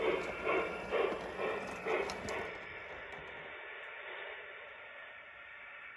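Aristocraft Mikado G-scale model steam locomotive chuffing in an even rhythm of about two beats a second. The chuffing stops about two and a half seconds in, leaving a faint steady hiss.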